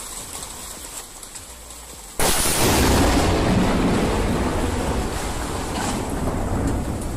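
Loud storm noise of wind and rain rushing over the microphone, cutting in suddenly about two seconds in.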